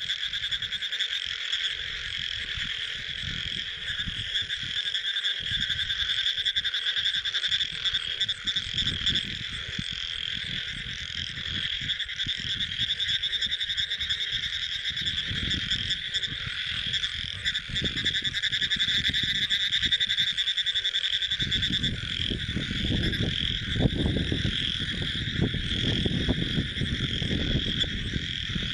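A dense, unbroken chorus of frogs calling at night, with fine rapid pulsing. A low rumbling noise comes and goes underneath and grows heavier about two-thirds of the way through.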